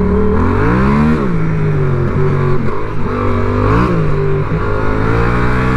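Yamaha MT-07's parallel-twin engine pulling away under acceleration. The revs climb and drop back twice as it shifts up through the gears, then hold steady.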